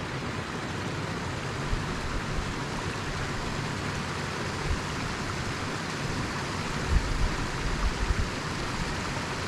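Small mountain creek rushing steadily over rocks at a little waterfall, with a few low thumps about seven to eight seconds in.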